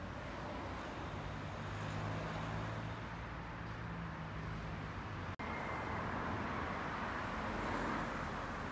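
Outdoor ambience of distant road traffic: a low, steady engine hum for a few seconds, then a broader traffic rumble. The sound cuts out for an instant a little past halfway.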